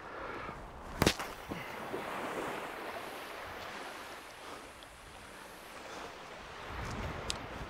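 Waves washing on the beach with wind on the microphone, a steady rushing noise. About a second in there is a single loud, sharp knock, with a few faint clicks near the end.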